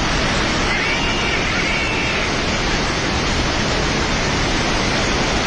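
Floodwater of a river in spate rushing past, a loud, steady, unbroken rush of water.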